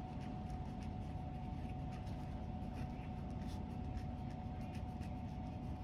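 Felt-tip pen writing on a paper workbook page: faint short scratching strokes, one after another. Under them runs a steady low hum with a faint steady tone.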